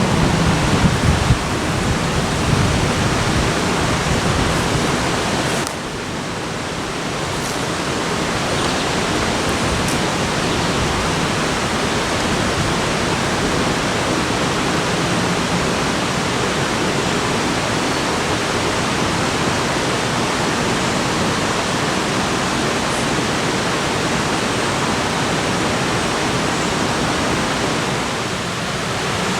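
Steady rushing of water in the rain, an even hiss with no let-up, dipping briefly about six seconds in.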